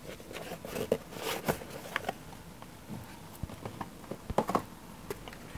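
Rustling and light clicks of a USB cable being handled, irregular throughout, with a louder bit of rustling about four seconds in.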